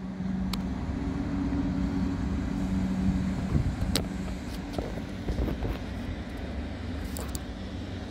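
Passenger train hauled by an EP09 electric locomotive running past, a steady low hum with scattered sharp clicks and knocks, thickest about halfway through.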